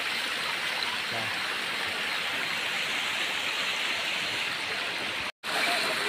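Stream water rushing over sloping rock slabs at a small waterfall, a steady even rush, cut off for a split second near the end.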